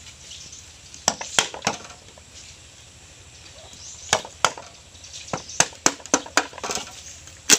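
A hammer striking a wooden-handled chisel to cut an opening in the wall of a green bamboo tube, giving sharp woody knocks. There are three knocks about a second in and two around four seconds, then a quicker run of about eight near the end.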